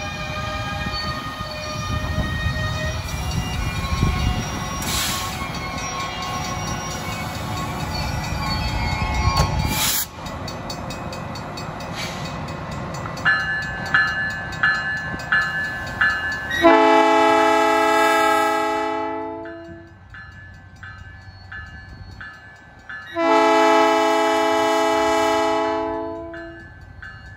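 Northwestern Pacific diesel locomotive 2009 rumbling past at low speed, then sounding its horn in two long blasts, the first about 17 seconds in and the second about 23 seconds in. A bell rings steadily about twice a second under the horn.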